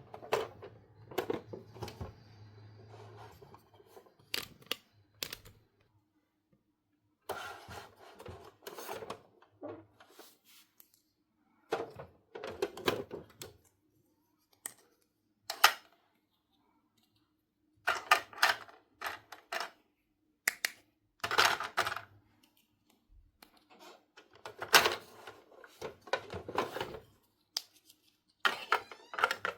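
Hands handling small plastic toy pieces and accessories, giving bursts of clicks, taps and light rattles with short pauses between.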